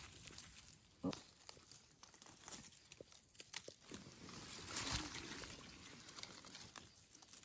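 Dry leaf litter crackling and leaves rustling as gloved hands cut and pick wild mushrooms from the forest floor, with small scattered clicks and a louder spell of rustling about five seconds in as leafy plants brush close by.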